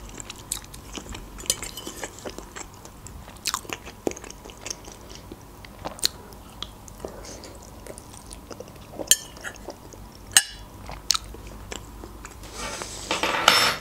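Close-miked chewing and wet mouth sounds of a person eating a soft fried egg, with scattered sharp clicks and smacks. Near the end there is a louder rustle about a second long.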